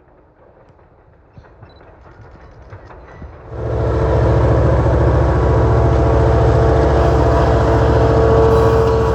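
A diesel-electric locomotive, an EMD GP9, passing by. At first there is only faint rumbling with a few light knocks; about three and a half seconds in, a loud, steady low rumble with a steady hum comes in suddenly and holds.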